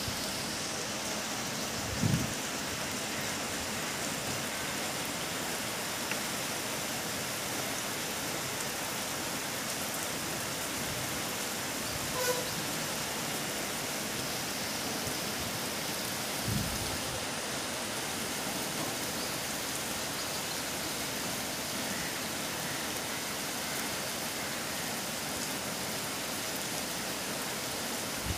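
Steady rain falling, an even hiss, with a few brief low thumps, one about two seconds in and another past the middle.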